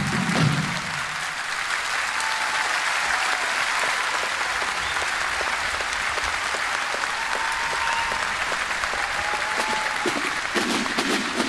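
A large audience applauding steadily. Drumming dies away just after the start and drums start up again near the end.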